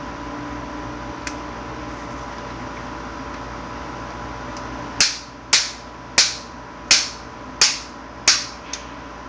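Spring-loaded arm mechanism of a GD A-Force S chest expander clacking sharply as it is worked: six loud clicks about two-thirds of a second apart, each with a short metallic ring, then a weaker one. A steady faint hum runs underneath.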